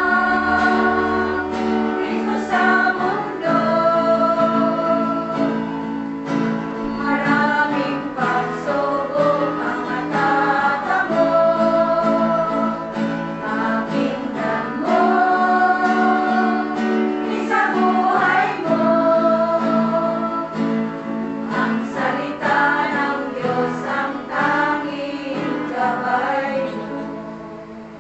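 Worship song: voices singing long held notes over guitar, fading out near the end.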